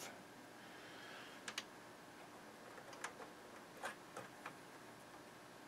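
A handful of faint, sharp clicks and ticks with a little light rustling, from hands handling the thin lamp wires and fitting a small panel-lamp bulb inside an open tuner chassis.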